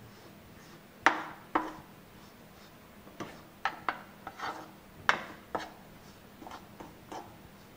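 A spoon stirring and scraping a dry, crumbly flour-and-sesame mixture in a metal kadhai, knocking against the pan's sides about eight times at uneven intervals. The loudest knocks come about a second in and about five seconds in.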